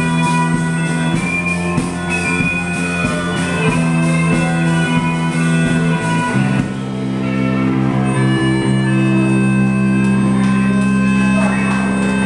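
Live rock band playing: electric guitar and bass guitar holding chords over a drum kit. About six and a half seconds in, the band moves to a lower chord and holds it.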